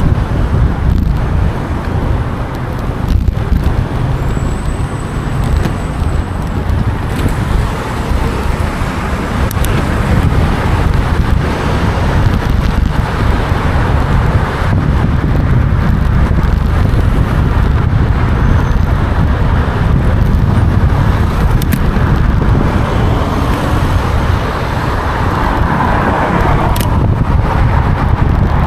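Very strong wind buffeting the microphone: a loud, steady low rumble that surges and eases, with a few brief clicks.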